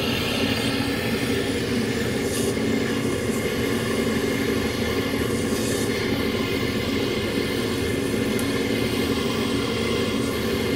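Hand-held butane torch burning with a steady rushing hiss, unbroken throughout.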